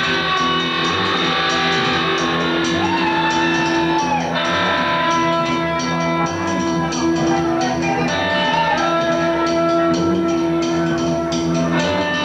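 Live rock band playing an instrumental passage: long held electric guitar notes, some of them bending in pitch, over bass and light drums.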